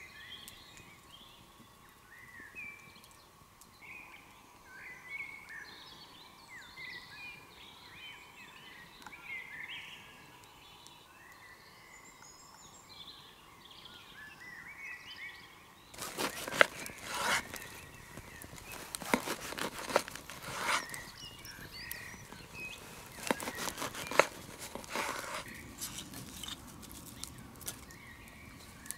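Songbirds chirping and singing in the woods. About halfway in, a run of loud, sharp cracks and snaps begins: wood crackling and snapping at a campfire. It dies away shortly before the end.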